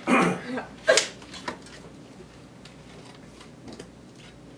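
A small cardboard gift box being handled and opened: a short rustle, a sharp knock about a second in, then a few faint clicks.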